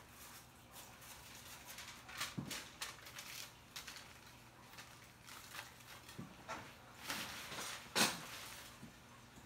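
Faint, irregular rustles and light taps of hair-colour work: lightener being brushed onto back-brushed hair. A sharper rustle comes about eight seconds in.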